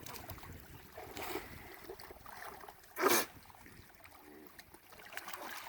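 Faint trickling creek water, with one short, louder noisy sound about three seconds in.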